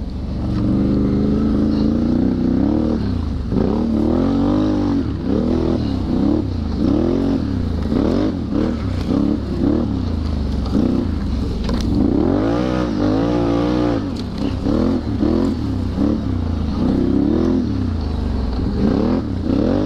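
ATV engine revving up and dropping back again and again, about once a second, as the throttle is opened and closed.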